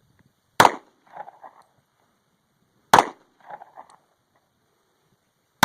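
Handgun shots fired one at a time, about two and a half seconds apart: two sharp reports, with a third coming right at the end. Each shot is followed about half a second later by a fainter, broken-up after-sound.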